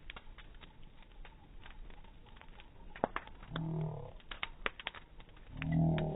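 Bonfire of branches crackling, with frequent sharp irregular pops. Twice, about three and a half seconds in and near the end, a low, drawn-out voice-like sound slides in pitch over the crackle.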